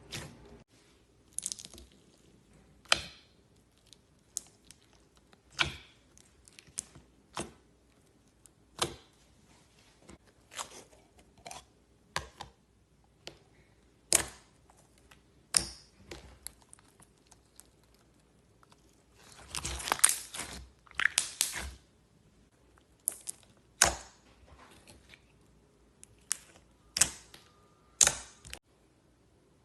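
Slime being squeezed and poked by hand, giving sharp pops and clicks about once a second. About twenty seconds in there is a denser crackling squish lasting a couple of seconds.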